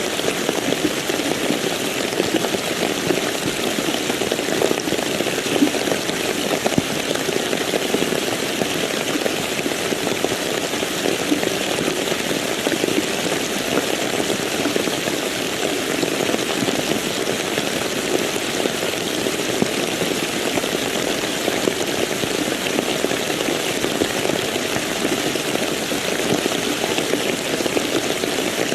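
Steady rain falling, a continuous even hiss of many drops with no single strikes standing out.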